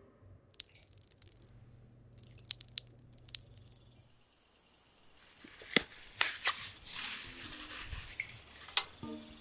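A few faint clicks of a ladle, then from about halfway through the crinkling and crackling of a plastic bag being handled as raw beef is pulled out of it, with a few sharp crackles.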